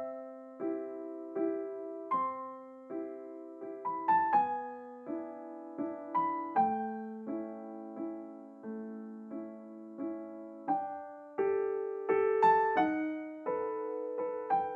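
Solo piano background music: a slow, gentle melody of single struck notes, about one every 0.7 seconds, each ringing and fading.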